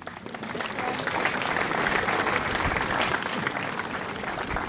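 Audience applauding, swelling over the first second or two and thinning out near the end.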